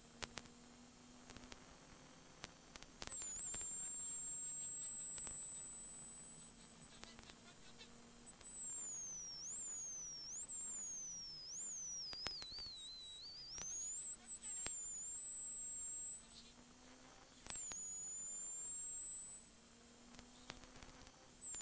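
Peugeot 106 XSi rally car's four-cylinder engine pulling hard, heard from inside the cockpit as a thin high whine that climbs slowly and drops sharply at each gear change, about three seconds in, near the end and just before it. In the middle the revs dip and climb several times in quick succession, with short clicks and knocks from the car over the road.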